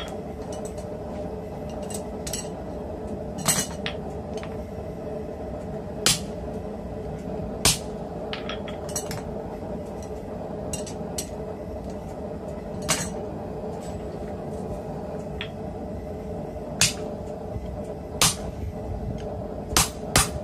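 Hammer striking a hand-forged slot punch held in tongs, driving it into a hot steel workpiece on a steel block: single sharp metallic strikes at irregular spacing, from about a second to several seconds apart, with a few lighter clinks of steel being handled between them, over a steady hum.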